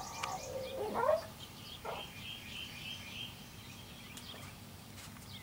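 An agitated dog whining, with a short rising-and-falling whimper in the first second or so. Then a bird chirps a quick run of high notes for about a second and a half.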